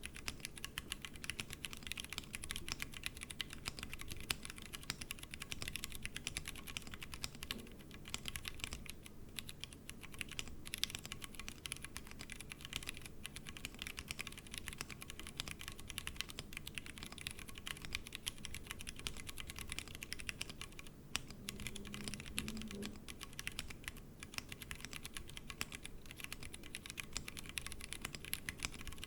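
Steady typing on a Tofu60 mechanical keyboard with stock Cherry MX Brown tactile switches, the board resting on a deskmat: a dense run of keystroke clacks with a couple of brief pauses.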